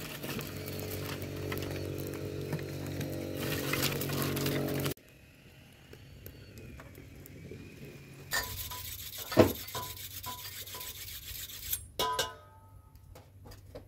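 A steady low drone for about five seconds that cuts off suddenly, then hands rubbing and scraping dough in a metal bowl, with scattered clinks and one sharp knock.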